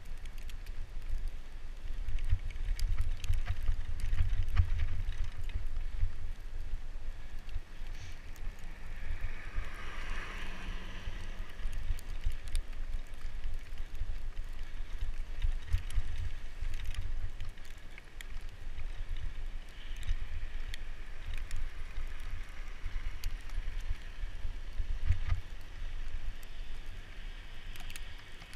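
Wind buffeting the microphone of a handlebar-mounted camera on a moving bicycle: a low, gusting rumble with scattered small clicks and a brief hiss about ten seconds in.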